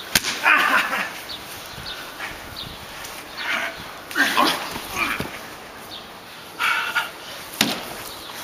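A wooden baseball bat striking, with two sharp hits, one just after the start and one near the end, among short shouts and groans from the wrestlers.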